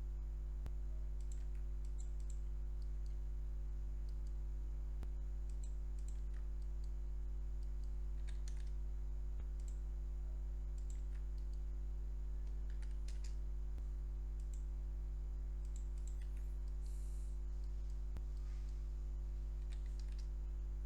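Scattered computer mouse and keyboard clicks at an irregular pace over a steady low electrical hum.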